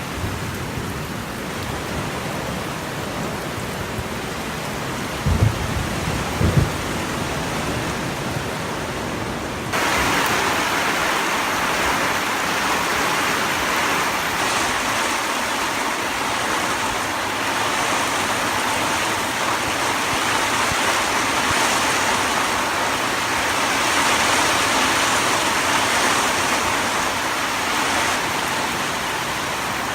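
A steady rush of water noise, from heavy rain or floodwater, with two brief low thumps and then a sudden jump to a louder, brighter rush about a third of the way in.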